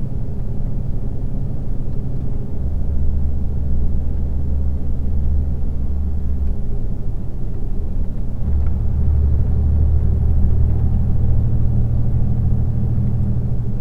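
Steady low engine and road drone heard inside a moving car's cabin. The low hum shifts pitch a few times.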